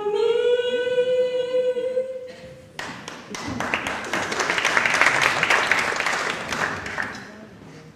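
A singer's long held note, rising slightly in pitch, ending about two seconds in; then audience applause swells up and fades away.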